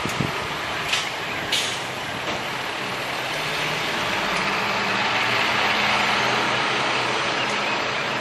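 Truck engine running steadily under a broad hiss that swells in the middle, after a few sharp clanks in the first second and a half.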